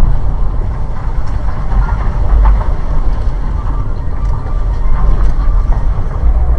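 Steady low rumble of a vehicle driving, engine and road noise picked up by a dashcam.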